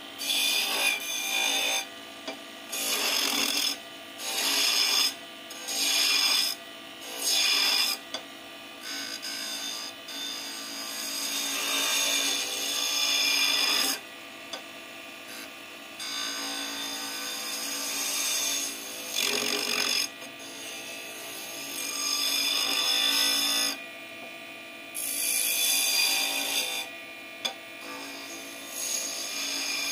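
A chisel scraping and cutting a piece of wood spinning on a wood lathe, over the lathe's steady running. The rasp comes and goes in repeated passes, short ones about once a second at first, then longer strokes.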